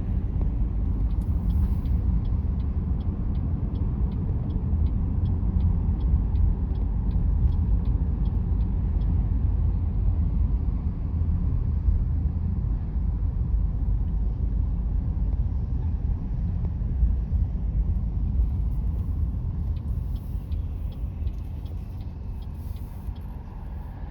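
Road noise inside a moving car: a steady low rumble of tyres and engine. A turn-signal indicator ticks about twice a second for the first several seconds and again near the end.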